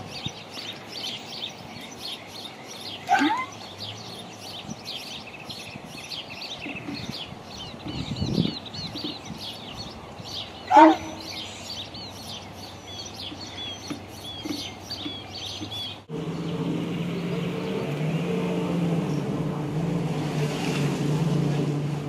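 Birds chirping and singing continuously, broken twice by a short, loud squeal, about 3 and 11 seconds in. About 16 seconds in the sound cuts abruptly to a steady low drone like a running motor.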